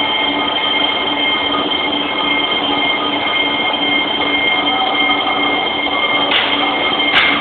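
Doosan PUMA SY2000 twin-spindle CNC lathe running, with a steady high-pitched whine over machining noise, and a couple of short bursts of noise near the end.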